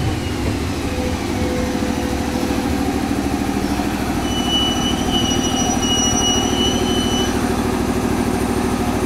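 JR 213 series electric train at the platform, its onboard equipment giving a steady low hum with a fast, even pulsing. A high thin tone comes in about four seconds in and stops about three seconds later.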